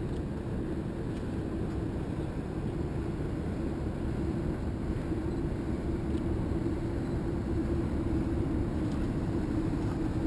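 A boat's motor running steadily under water and wind noise, its low hum growing stronger about four seconds in.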